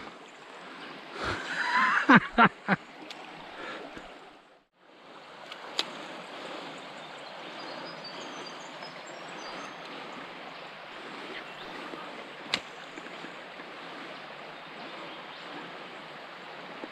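Small creek flowing over shallow rocks: a steady babbling rush of running water. A few splashes and knocks come in the first three seconds, and a single sharp click about twelve seconds in.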